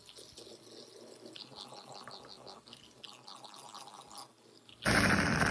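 Electric hand mixer beating soft, creamy cookie batter in a plastic bowl: a low buzz with the wet churning of the beaters. It gets much louder shortly before the end.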